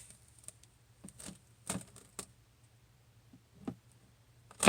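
Adhesive stencil transfer being peeled up off a painted surface: a few faint, irregular crackles and taps, with one sharper click near the end.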